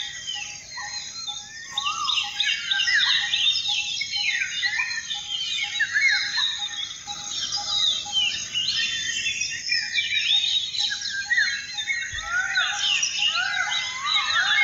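A chorus of many birds chirping and calling over one another, with a single low note repeated steadily about three times a second that breaks off briefly a little past the middle.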